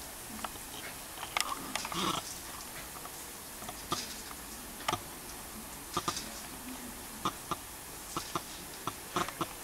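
Lawn sprinkler's water jet hissing steadily, with irregular sharp clicks and snaps as a small dog lunges and bites at the spray.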